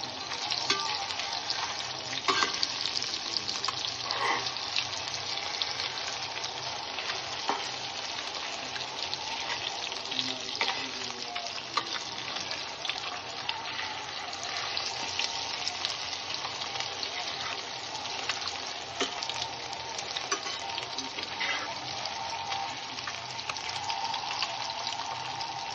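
Semolina-coated catla fish pieces shallow-frying in hot oil in a stainless steel pot, turned after browning on one side, with a steady crackling sizzle. A few short knocks and scrapes of a steel spatula against the pot stand out, the first about two seconds in.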